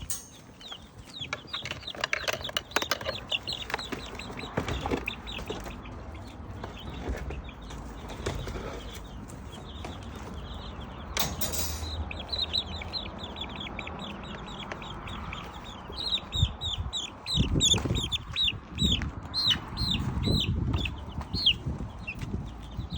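Young chicks feeding in a flock: scratching, pecking and wing-flapping, with rapid high peeping calls that grow dense over the second half, and a few dull thumps.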